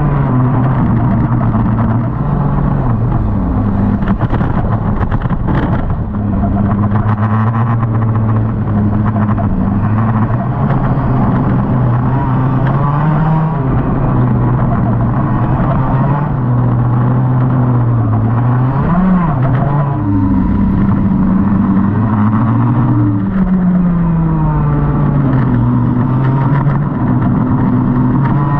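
IAME KA100 two-stroke kart engine heard from onboard the kart, its pitch rising under throttle and dropping off again, over and over, as the kart accelerates and brakes through the corners.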